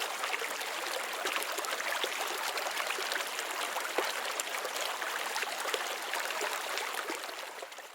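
Creek water running and babbling over stones, a steady splashy hiss that fades out near the end.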